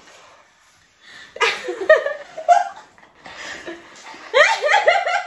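Several women laughing and giggling, mixed with a few spoken words. It starts quiet, the laughter comes in about a second and a half in, and it breaks into quick, repeated bursts near the end.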